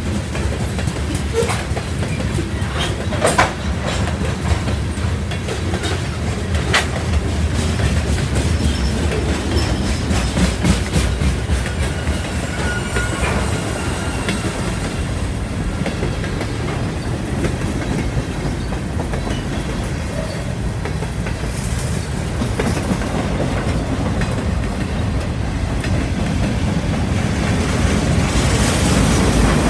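Freight train cars (covered hoppers, then boxcars) rolling past on steel wheels: a steady rumble with clickety-clack over the rail joints and two sharp clanks within the first seven seconds, growing louder near the end.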